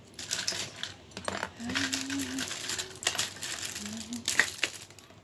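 Clothes and small hard household items being handled and put away: rustling with a string of sharp clicks and light clatters, the loudest knock about four seconds in.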